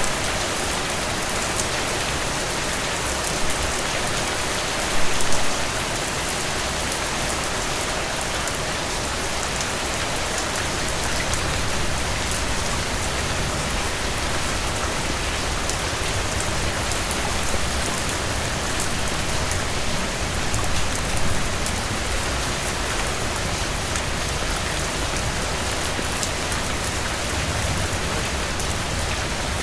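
Steady rain falling on a surface: a dense, even patter of drops, with a brief louder burst about five seconds in and a smaller one about twenty seconds in.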